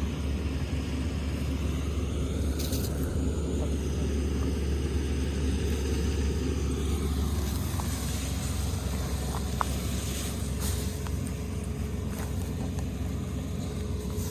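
Kubota Dynamax ER470 combine harvester's diesel engine and machinery running steadily with a low drone; the note drops a little about halfway through.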